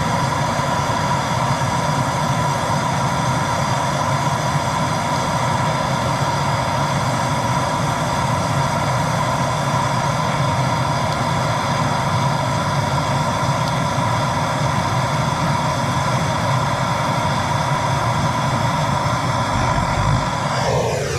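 Handheld TS4000 propane torch burning steadily with an even hiss and a constant whistling tone, then shut off just before the end, its sound dropping quickly in pitch.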